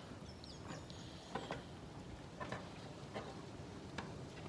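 Faint, irregular clicks and taps, roughly one a second, with a brief high chirp about half a second in.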